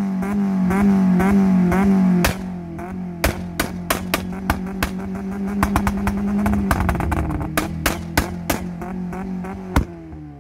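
Car engine held on a DIY spark-cut rev limiter, its note stuttering at a steady pitch. From about two seconds in comes a rapid, irregular string of sharp bangs from the exhaust: fuel passed through unburnt is being lit by a spark plug fitted in the muffler. The revs drop near the end.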